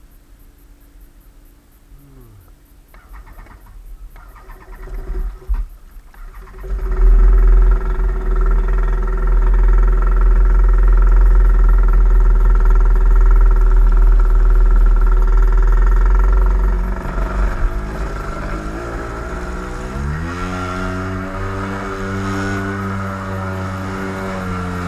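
An engine comes in loud about a quarter of the way through, running steadily under a heavy low rumble. Near the two-thirds mark its pitch climbs and settles higher as it speeds up.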